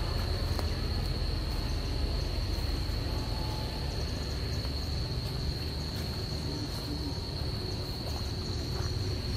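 Insects droning steadily at one high pitch, over a constant low rumble.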